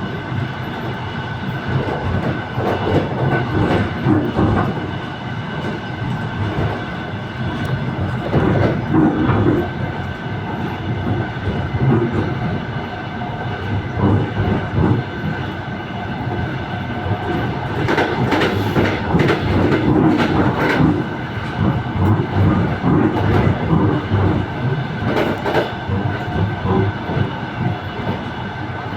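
Passenger train running, heard from inside a carriage vestibule: a steady rumble with the wheels knocking over the rail joints at irregular intervals.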